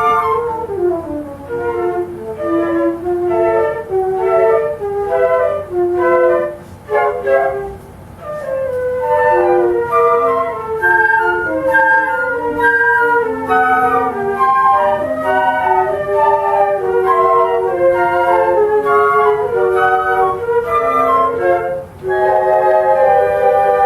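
Flute orchestra playing a lively choro in several interwoven parts, with brief pauses in the phrasing about seven seconds in and again near the end.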